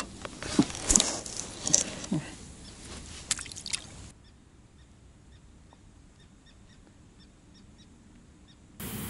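Rustling with sharp clicks and knocks as a small, just-caught crucian carp is handled. After an abrupt cut, near-quiet with faint high chirps repeating about three times a second, and near the end a steady hiss sets in.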